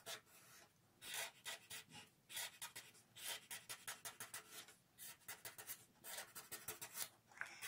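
Marker pen drawing on a paper workbook page: a faint run of short, quick strokes, a few a second, with brief pauses between them.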